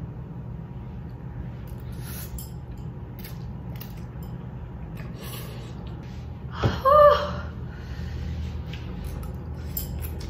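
Faint eating sounds of a woman working through a bowl of instant noodles with chopsticks: light slurps and clicks over a steady low room hum. About seven seconds in comes one short, loud vocal exclamation, like a gasp.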